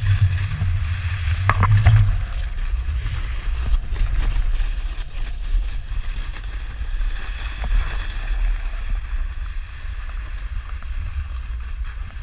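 Wind buffeting a pole-mounted action camera's microphone with a low rumble, loudest near two seconds, over the steady hiss of a snowboard sliding across icy snow while snowkiting.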